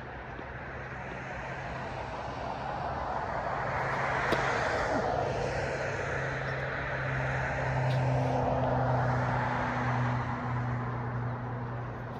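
A passing engine's drone that slowly swells, stays loud through the middle and eases off near the end, with a steady low hum underneath and a single sharp click about four seconds in.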